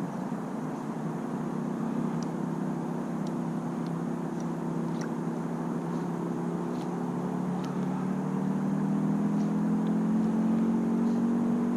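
An engine running steadily, its pitch slowly rising as it grows louder.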